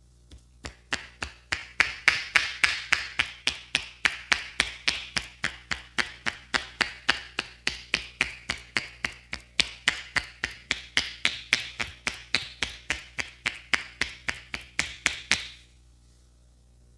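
Rapid, even hand slaps of a champi head massage, about four to five a second, starting just under a second in and stopping suddenly near the end.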